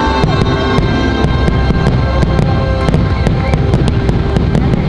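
A rapid series of fireworks bursts and bangs, some in quick clusters, over loud orchestral show music.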